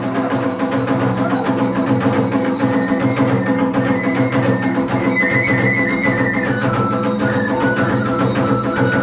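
Iwami kagura music: drums and hand cymbals beating fast and steadily. A high flute melody comes in about three seconds in and steps downward.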